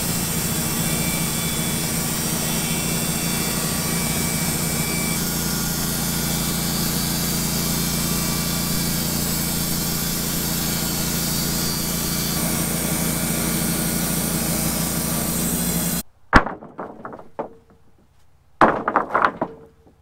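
Wood-Mizer LT15 GO portable bandsaw mill running steadily with its band blade cutting through a southern yellow pine cant. It stops abruptly near the end, and a few sharp wooden knocks follow as sawn 2x4 boards are dropped onto a stack.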